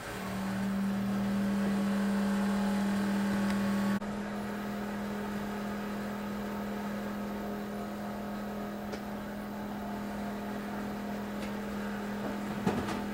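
A steady machine hum at one pitch. It starts suddenly, drops a step in level about four seconds in and carries on. A brief knock comes near the end.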